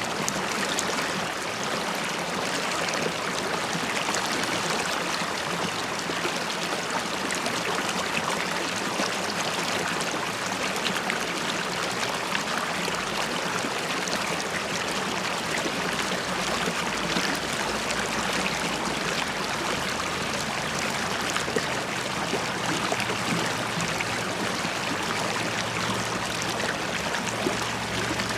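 River water flowing and bubbling over stones, a steady rushing with small gurgles and splashes.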